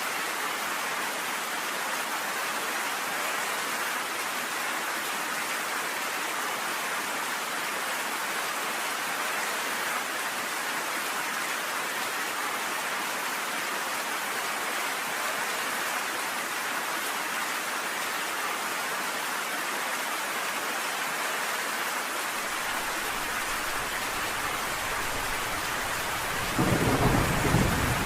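Steady rain falling in an even hiss. Near the end a loud, low rumble of thunder breaks in and keeps rolling.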